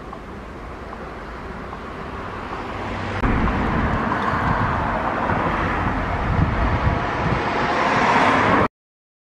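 Street traffic noise with wind on the microphone. It turns louder and more rumbling about three seconds in, builds toward the end, then cuts off abruptly.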